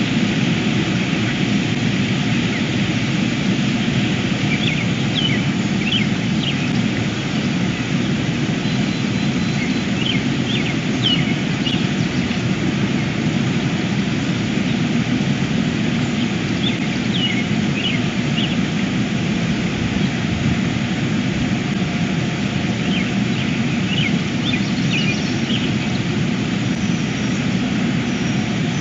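Ospreys chirping in four short series of quick, high, whistled notes, over a steady low rumbling background noise.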